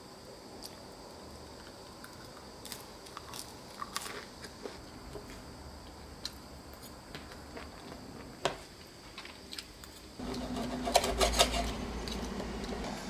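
Eating sounds: a crisp waffle-pressed bread bowl being bitten and chewed, with the light clink of a fork against a ceramic plate. Near the end a knife and fork saw through the crisp crust on the plate in a quick cluster of clicks and scrapes.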